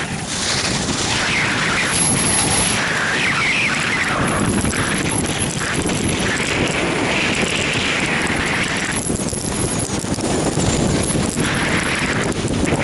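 Wind buffeting the microphone of a camera moving fast downhill, with the scrape of edges on packed snow swelling and fading through each turn.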